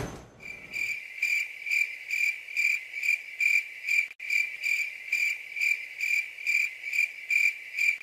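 Cricket chirping in an even rhythm, a little over two high chirps a second. A short noise dies away at the very start, and there is one sharp click near the middle.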